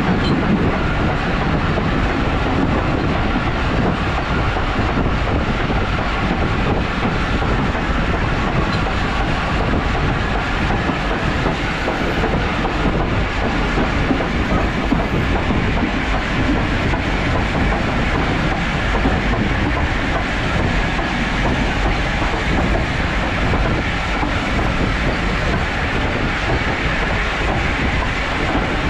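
Heritage passenger train running along the track: a steady rumble of carriage wheels on the rails, with clickety-clack, at an even pace throughout.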